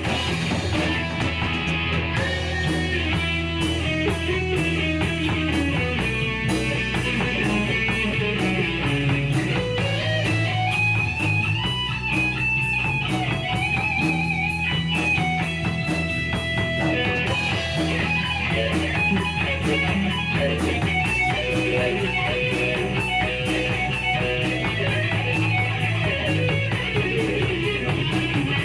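Instrumental break of a rock song: a lead melody line with pitch bends and slides played over bass and a steady drum beat, with no singing.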